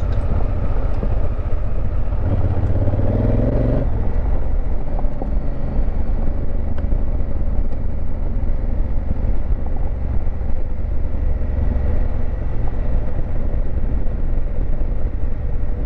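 Honda Africa Twin CRF1000L's parallel-twin engine running steadily while riding a dirt trail, with a deep continuous rumble of engine, wind and tyres.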